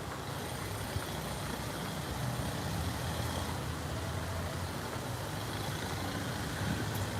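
Low, steady rumble of a road vehicle's engine running.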